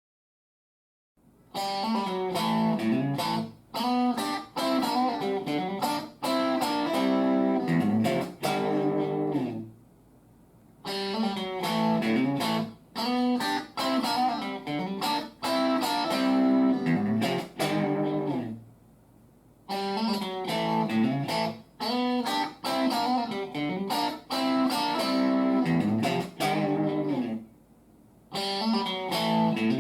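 Electric guitar played through a BOSS Nextone Stage 40-watt combo amp on its lead channel with the gain at 5. Phrases of riffing start about a second in and repeat roughly every nine seconds, each separated by a brief pause.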